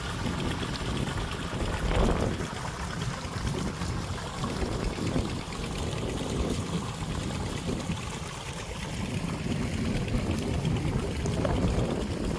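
Irrigation water running and pouring along the field furrows, a steady splashing flow under a low rumble.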